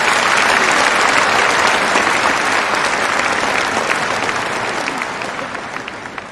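Large audience applauding, loud and dense at first, then gradually fading, with a few separate claps standing out near the end.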